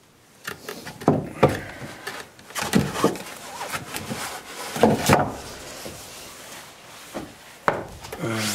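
A puffy jacket and a handheld camera rubbing and scraping against rough stone as someone squeezes through a small opening in a stone wall. The sound is a run of irregular scuffs and knocks, loudest about a second in and again about five seconds in.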